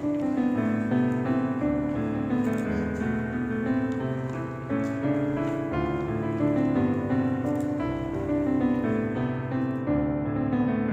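Background music led by piano, steady notes moving at an unhurried pace.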